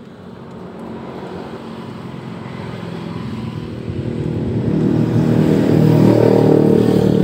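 A motor vehicle's engine nearby, growing steadily louder, loudest near the end, then starting to fade, as it passes by.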